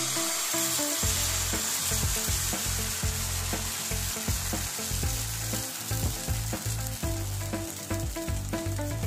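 Rice-flour pitha batter sizzling in a hot wok: a loud, steady hiss that starts just as the batter hits the pan.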